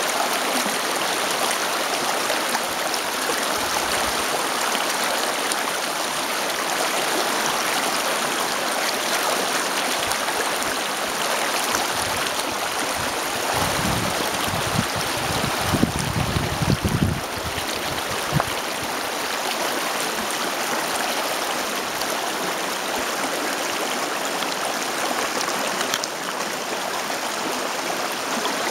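Shallow stream water splashing and trickling around a weathered log, a steady rushing. A few low rumbles come about halfway through.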